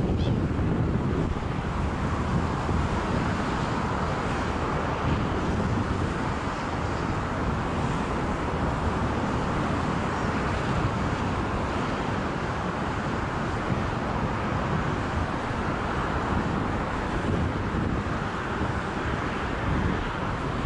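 Wind buffeting the microphone: a steady, loud rumble with a constant hiss over it.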